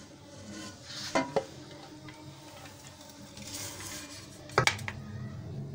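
Metal ladle scraping and clinking against a metal cooking pot as cooked biryani rice is scooped out and served. Two sharp clinks come about a second in, and a louder cluster of two or three knocks near the end.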